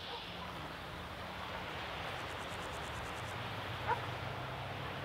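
Wind buffeting the microphone over open-air background noise. A low steady hum comes in about three seconds in, and there is one short, distant call about four seconds in.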